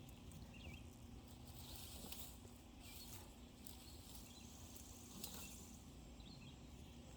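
Near silence: faint outdoor field ambience with scattered soft clicks and rustles and a few faint chirps.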